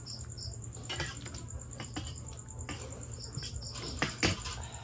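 Spoons and forks clinking and scraping against plates and bowls during a meal, a few sharp clinks with the loudest about four seconds in. Crickets trill steadily underneath, with groups of higher insect chirps and a low hum.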